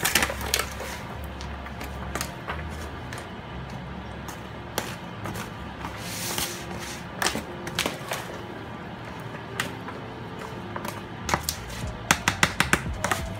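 Background music with a steady bass line, over the scraping and tapping of a spoon against a foil pan as seasoned rice is stirred; a quick run of louder taps comes near the end.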